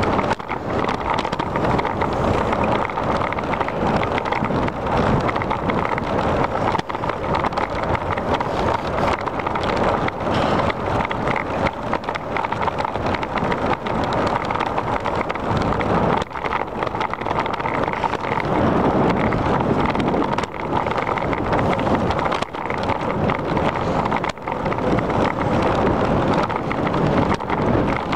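Wind rushing over the microphone of a camera on a moving bicycle, a steady, loud noise throughout the ride.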